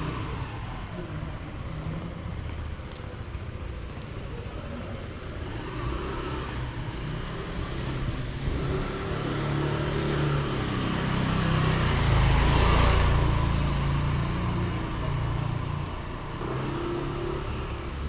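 Street ambience with a motor vehicle passing close by: its engine rumble builds to a peak about twelve seconds in, then fades away.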